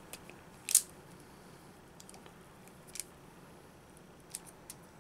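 Self-adjusting wire stripper clamping and snapping shut on insulated wire, stripping the insulation: one sharp click about a second in, then a few fainter clicks later.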